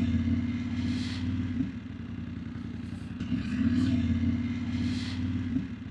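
BMW F900GS parallel-twin engine riding at town speed, its pitch climbing as it accelerates, dropping at a gear change about a second and a half in, then climbing again and dropping once more near the end.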